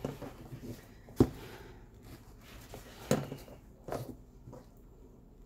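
Hand stitching a backpack shoulder strap with a sewing awl: a sharp tap about a second in, then a couple of softer knocks and faint rustles of thread and strap being handled.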